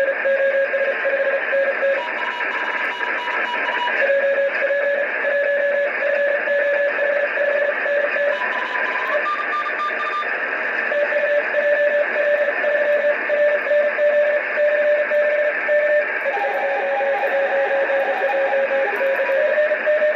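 Morse code (CW) signals relayed by the RS-44 (DOSAAF-85) amateur radio satellite, heard through a receiver's speaker: a keyed beeping tone of dots and dashes over steady hiss. Other keyed tones at higher pitches come and go among them.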